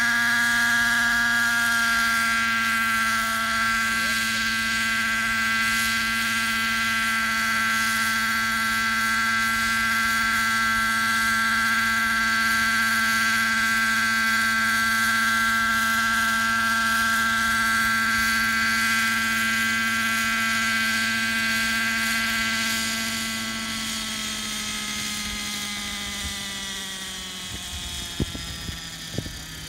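Hirobo Freya model helicopter's glow engine and rotors running steadily in a low hover, with a high whine. About 23 seconds in, the pitch and loudness fall as the throttle comes back for landing, with a few light knocks near the end.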